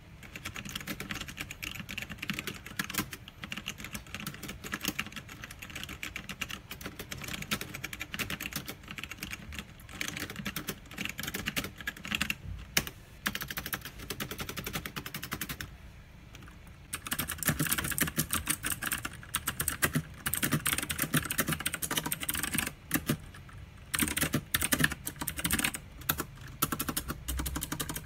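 Mechanical keyboard being typed on in a steady run of key clicks. After a brief pause about sixteen seconds in, the typing resumes louder and denser.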